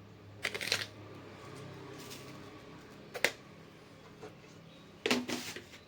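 Short rustles and scrapes with one sharp click, from a spoon and cut bitter gourds being handled while salt is added to them.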